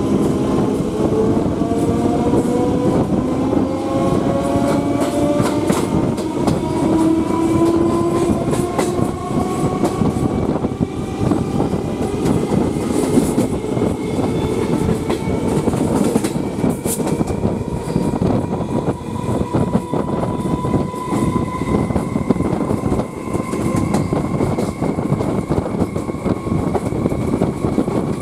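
Electric multiple-unit local train heard from its open doorway as it gathers speed: the traction motors whine in several tones that climb slowly and steadily in pitch. Under the whine, the wheels rattle and clack over the rails.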